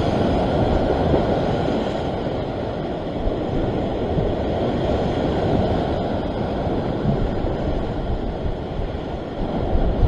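Ocean surf surging and breaking over a rock ledge as a continuous wash of water that swells and eases, with wind buffeting the microphone.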